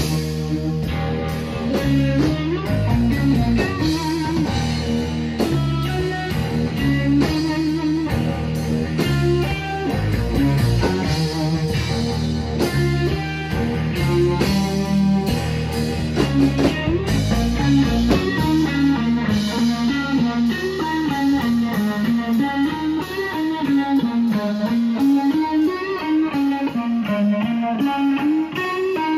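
Live blues-rock trio playing: electric guitar through a Fender Super Reverb amp over bass guitar and drums. About two-thirds of the way in the deep bass drops away, leaving a slowly wavering guitar note over the drums.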